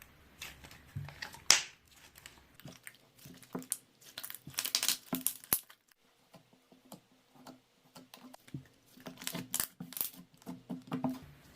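Faint rustling and crinkling with scattered small clicks, coming in irregular short bursts, as of objects being handled.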